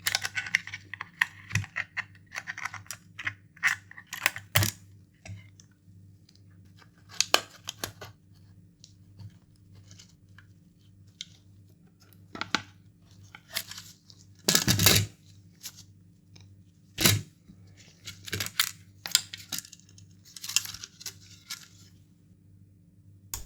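Irregular clicks, taps and short scrapes of small tools against the plastic and metal parts of a Nintendo DSi XL as it is taken apart by hand, with a longer scraping rustle about fifteen seconds in and again near the end.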